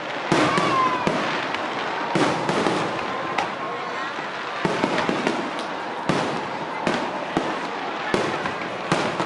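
Aerial fireworks going off in a run of sharp bangs at uneven intervals, about a dozen in all, over the chatter of a large crowd of spectators.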